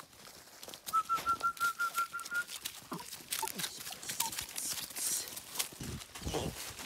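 Hound puppies and the person filming moving over dry leaf litter and twigs, with scattered crunches and scuffs. About a second in comes a quick run of about nine short, even, high-pitched pips.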